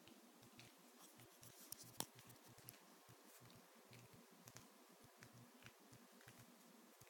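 Near silence: quiet room tone with a few faint small clicks and ticks, one sharper click about two seconds in.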